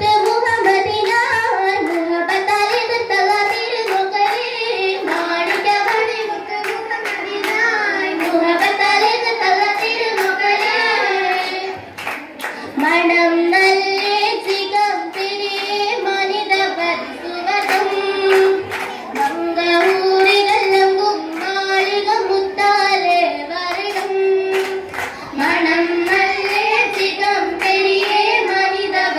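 A chorus of girls sings an Oppana song in unison, accompanied by rhythmic hand clapping. The singing breaks off briefly about twelve seconds in, then resumes with the claps.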